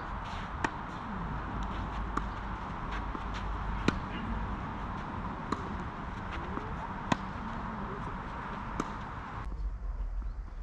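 Tennis rally: about six crisp racket-on-ball strikes at an even pace, roughly every one and a half seconds, every other strike louder as the near and far players trade shots, over a steady background hiss.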